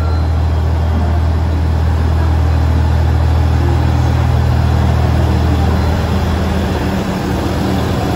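JR Central HC85 series hybrid diesel railcar pulling away from a station platform, its diesel engine-generator running with a steady low drone that eases off near the end as the car moves past.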